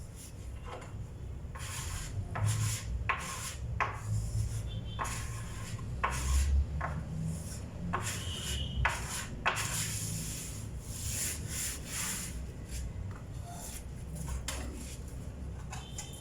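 A hand tool rubbing and scraping over a wooden tabletop in many short, irregular strokes.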